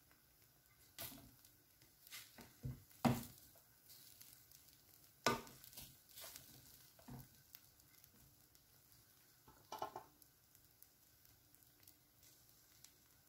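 Scattered light clicks, knocks and scrapes of a spoon stirring and turning freshly boiled rice in a cooking pot, with a short cluster of knocks about ten seconds in.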